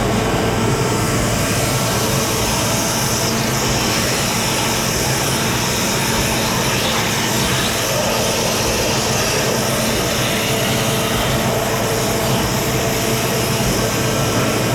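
Water jet cutter cutting steel flanges: a loud, steady high-pressure hiss with a low machine hum beneath.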